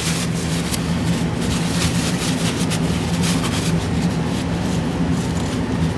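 Steady low machine hum, like fans running, with rapid light scratching strokes of a brush being worked over the metal fins of a graphics card heatsink.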